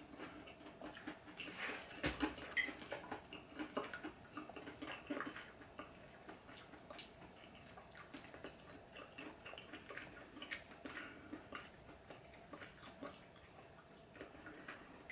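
Faint, irregular small clicks of a metal fork working on a ceramic plate, with the quiet sounds of chewing, while chicken is eaten; a few clicks stand out about two to five seconds in.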